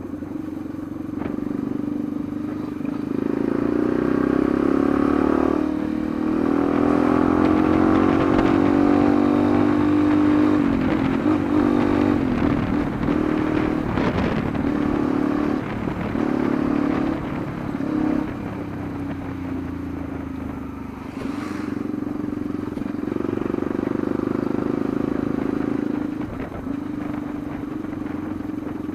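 Yamaha Lander 250's single-cylinder engine running under way, its pitch rising with the throttle and dropping back several times as the rider accelerates and changes gear.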